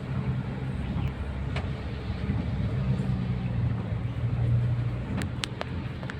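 A motor vehicle's engine running steadily, a low even hum with road noise, and a few light clicks about a second and a half in and again near the end.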